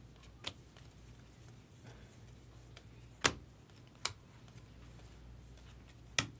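Baseball trading cards handled and flipped through by hand: four short sharp clicks as cards are moved through the stack, the loudest about three seconds in, over a low steady hum.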